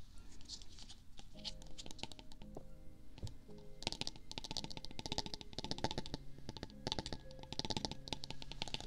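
Rapid bursts of crisp clicking and tapping close to a binaural ASMR microphone, thickest from about four seconds in, over soft background music with slow held notes.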